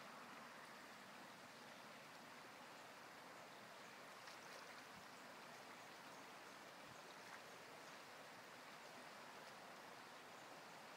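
Faint, steady rush of a shallow river flowing over stones, close to near silence.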